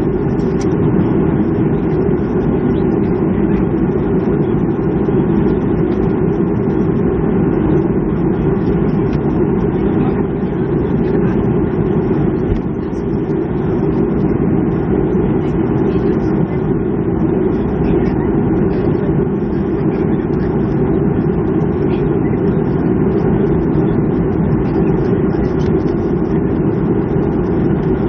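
Steady low rumble inside the cabin of a Boeing 737-300 on the ground after landing, with a faint hiss above it and no change in level.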